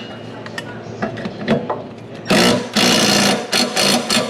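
Power wrench with a 15/16 socket hammering in three short bursts, loosening a mower blade bolt, after a few clicks and knocks of the socket being fitted.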